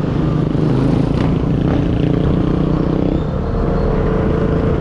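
Vespa scooter engine running under way, with a steady rumble of riding; the engine note dips about three seconds in, then climbs again.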